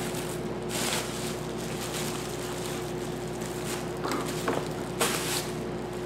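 Plastic bubble wrap rustling and crinkling in short bursts as it is handled and pulled off a small packed item, loudest about five seconds in, over a steady hum.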